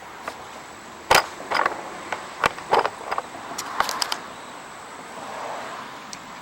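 Hand work on a snowblower's skid shoe and its hardware: a string of sharp knocks and clicks, about eight over three seconds, the loudest about a second in, then only a steady hiss.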